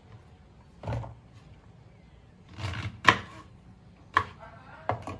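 Kitchen handling sounds: a handful of separate knocks and thuds as utensils and containers are picked up and set down, the sharpest about three seconds in.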